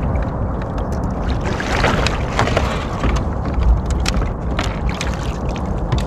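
Wind rumbling on the microphone over water moving against a kayak hull, with scattered light clicks and knocks of handled gear.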